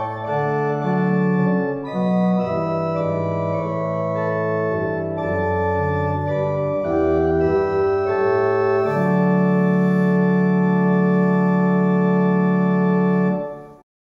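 Organ playing slow, sustained chords that change every second or two, ending on a long held final chord that stops abruptly near the end.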